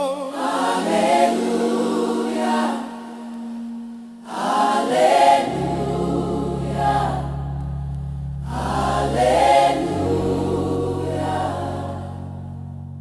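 Gospel music: a choir sings three short phrases over held low notes, and the music fades out near the end.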